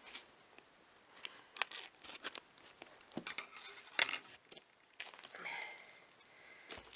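Plastic wrapping being torn and crinkled as it is pulled off a cardboard storage box, in a string of short, irregular rips and rustles.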